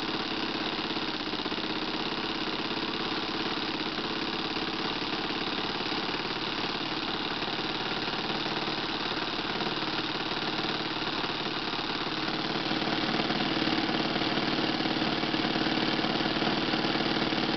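Magnum .52 four-stroke glow engine on an RC airplane running steadily during its break-in, about four tanks of fuel into it, with its propeller spinning. It gets louder about two-thirds of the way through.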